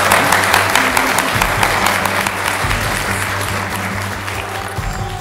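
Congregation applauding, the clapping dense at first and gradually dying away, over soft background music.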